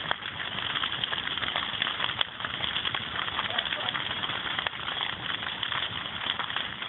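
Large fire, a burning caravan, crackling with dense rapid pops, and faint voices in the background.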